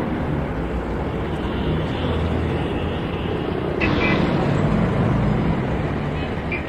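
Steady street traffic noise from passing vehicles, getting louder about four seconds in.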